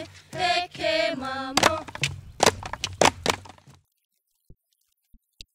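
Group chanting in Hawaiian, punctuated by sharp strikes on ipu heke double-gourd drums. It cuts off abruptly a little before the four-second mark, leaving near silence with a few faint taps.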